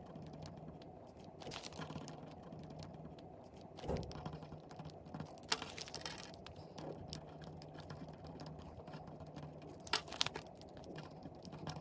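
Pen writing on a folded sheet of printer paper lying on a table, light scratching broken by a few sharp clicks and taps as pens are put down and picked up; paper rustles as the sheet is unfolded near the end.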